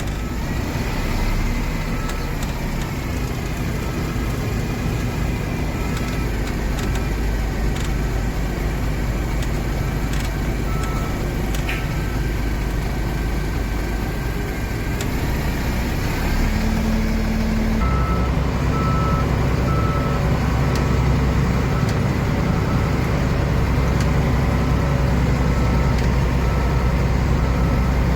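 Heavy construction machine's engine running steadily, getting louder about two-thirds of the way through, with a reversing alarm beeping over it.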